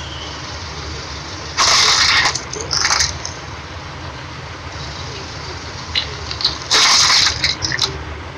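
Car tyre crushing small objects on asphalt, with loud crunching, crackling bursts about two and three seconds in and again around seven seconds in; the later ones are glass nail polish bottles breaking under the tyre, followed by a few sharp clicks of glass bits. A low, steady car engine idle runs underneath.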